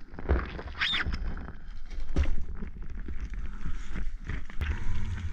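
Cardboard shipping box being pulled open by hand and its flaps folded back: irregular rustling and scraping of cardboard with small knocks.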